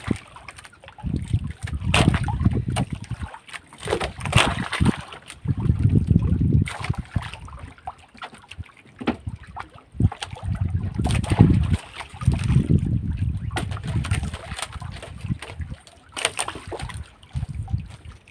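Sea water sloshing and splashing against a small fishing boat, in low surges every couple of seconds, with scattered knocks.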